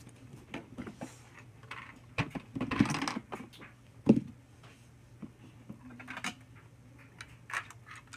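Plastic LEGO pieces clicking and rattling as the model house is handled and its upper floors lifted off, with a rustle about two seconds in and one sharp knock about four seconds in.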